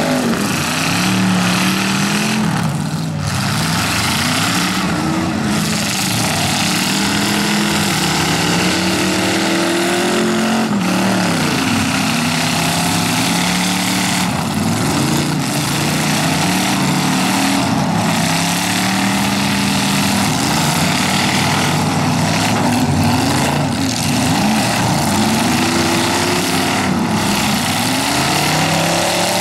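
Several full-size V8 demolition derby cars revving up and down, their engine notes overlapping and rising and falling constantly, with repeated crashes of car bodies slamming together every few seconds.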